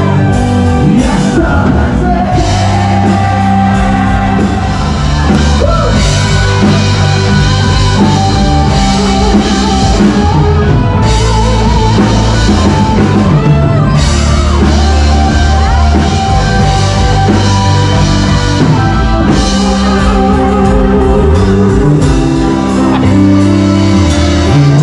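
Rock band playing with a singer over drums, bass and electric guitar.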